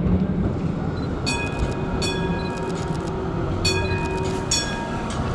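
Melbourne tram approaching over a low rumble, its warning bell rung in several quick bursts of ringing dings, warning someone standing on the tracks.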